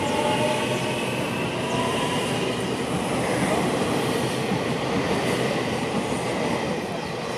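Electric commuter train rolling slowly past: a steady rumble of wheels on the rails with a few faint whining tones, easing off near the end as the cars go by.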